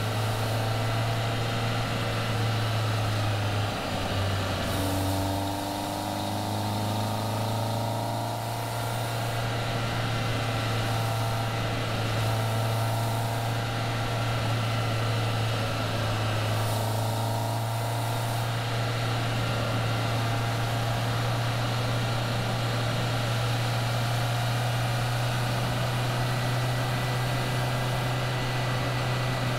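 Caterham Seven's engine running steadily while driving, with road and wind noise. The engine note dips about four seconds in and then climbs over the next few seconds, and climbs again around sixteen seconds.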